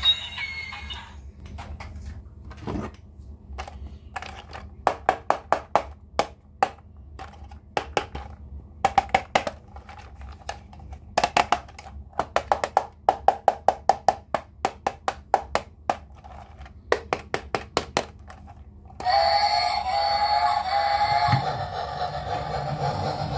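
Rapid runs of sharp clicks from toys being handled, coming in bursts of several a second with short gaps. About nineteen seconds in, the clicks give way to a steady whirring sound with a held tone.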